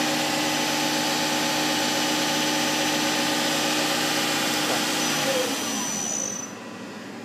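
Topper TNL-100A CNC turning center's spindle running at 3,000 RPM with a steady whine. About five seconds in it winds down, the pitch falling and the sound dropping off.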